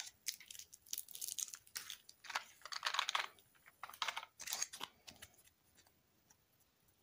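Hands handling a white plastic egg-half, a small cardboard box and a lollipop: a string of light clicks, taps and rustles of plastic and cardboard, stopping about five seconds in.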